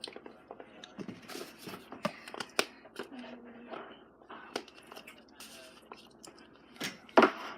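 Slime being handled and squished by hand, giving a run of irregular sticky clicks and pops, with a louder one about seven seconds in.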